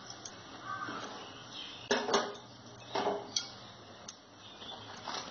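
Wire spider strainer knocking and clinking against the metal kadai and the plate as the fried pakoras are lifted out and tipped off. It makes a few sharp knocks, the loudest about two and three seconds in.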